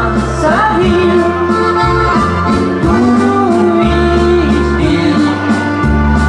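Live dance music: a woman singing into a microphone over accordion and keyboard backing. The singing has long held notes over a steady bass line that changes note about once a second.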